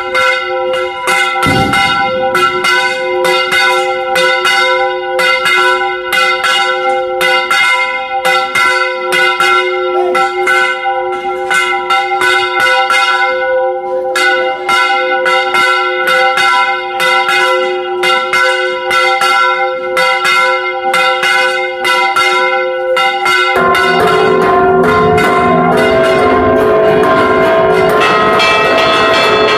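Church bells rung close up in the belfry in a festive repique: the clappers are pulled by hand ropes and strike in quick succession over ringing, overlapping bell tones. About 24 s in, the ringing turns denser and a little louder.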